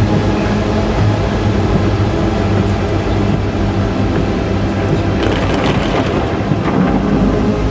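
Heavy rain on a car with its engine running, a steady noise with a low hum underneath.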